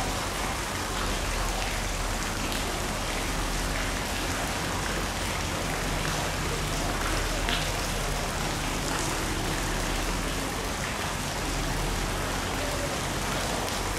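Steady hiss of rushing or falling water, even and unbroken throughout, with faint voices underneath.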